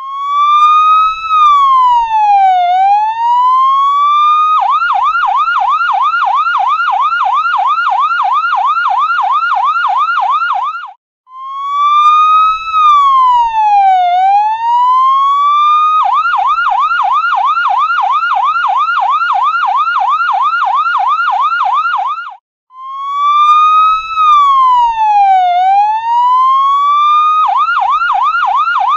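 Ambulance electronic siren alternating a slow wail, rising then falling and rising again over about four seconds, with a fast yelp of about four cycles a second lasting about six seconds. The cycle repeats about three times, with a brief cut-out before each wail.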